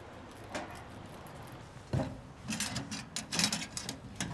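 Hard objects knocking and clattering: a sharp knock about two seconds in, then a quick run of clicks and rattles.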